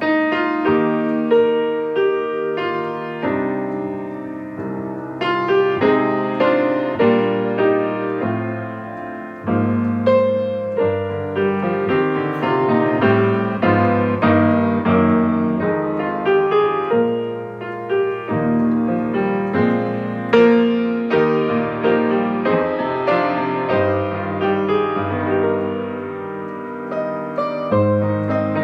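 Piano playing slow, flowing chords, each struck note fading away as the next ones come in.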